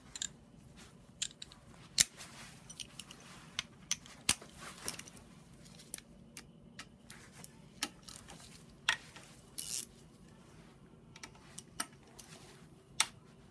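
Metal sockets and a ratchet clinking and tapping in irregular sharp clicks as they are handled: sorting through sockets for an E12 external Torx, then fitting one on a ratchet onto an oil pump bolt.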